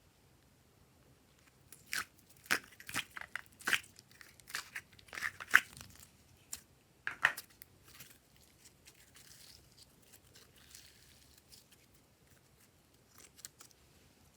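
Hands working slime and its mix-in items, making a run of sharp sticky clicks and crackles that is densest in the first half. A softer rustle follows, and a few faint clicks come near the end.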